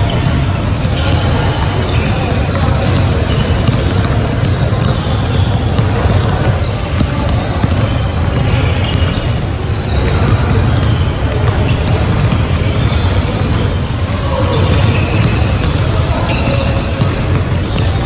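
Many basketballs being dribbled at once on a hardwood gym floor: a constant, overlapping clatter of bounces.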